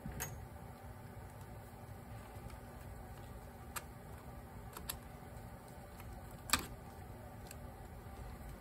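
Sparse light clicks of a flat-blade screwdriver working a pilot jet into a Honda GL1500 carburetor body, about six in all, the loudest about six and a half seconds in, over a faint low hum.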